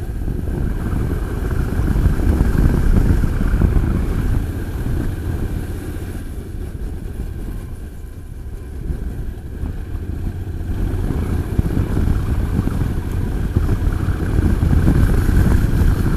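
Motorcycle engine running and wind rushing on the rider's microphone while riding. The sound eases off around the middle and grows louder again near the end.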